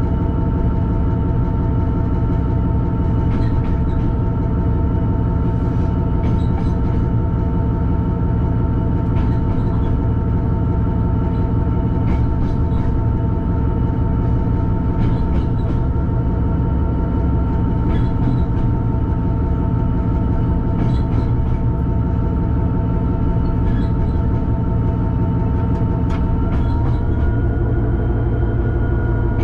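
Class 66 diesel locomotive's two-stroke V12 engine running steadily, heard from inside the cab, with faint clicks every few seconds from the wheels over rail joints. The engine note steps up slightly near the end.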